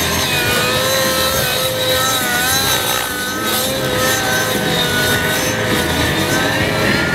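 Radio-controlled model helicopter's engine running at high revs during aerobatic flight, a buzzing whine whose pitch wavers up and down as it manoeuvres.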